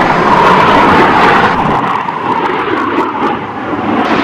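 Boeing T-7A Red Hawk's single GE F404 turbofan jet engine as the trainer makes a high-speed low pass: a loud, steady jet rush whose tone drops a little about halfway through as it goes by.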